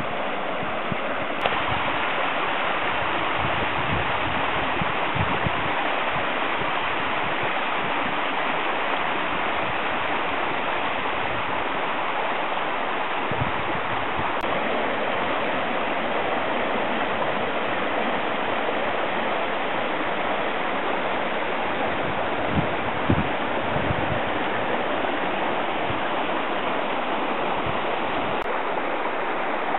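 Snowmelt floodwater rushing in a steady, loud torrent through a roadside ditch, with a few short low bumps now and then.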